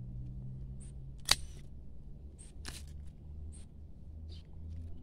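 Hand pruning shears snipping rose canes: one sharp click about a second in, then a few fainter snips and rustles of stems and leaves.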